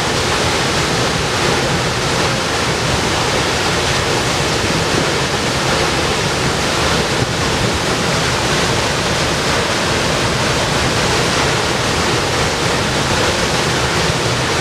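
Chōshi Falls waterfall: a steady, unbroken rush of falling water.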